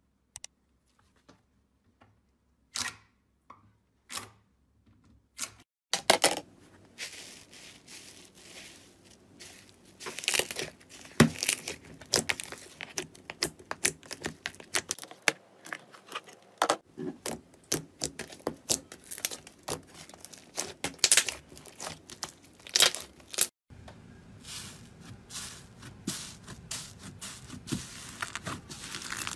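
Hands squeezing, stretching and kneading slime, making sticky crackling, popping and tearing sounds. A few scattered pops at first, then dense irregular crackling from about six seconds in, with a brief break before it resumes.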